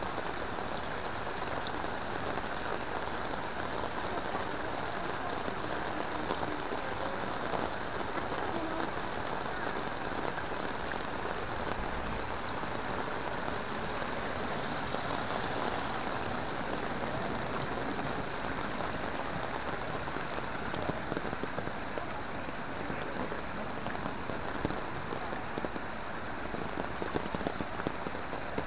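Heavy rain falling steadily, splashing on the surface of a flooded pond.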